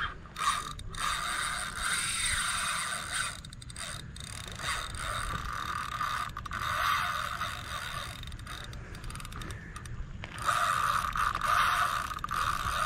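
Spinning reel's drag buzzing as a big, hard-pulling snook takes line, in long runs broken by short pauses.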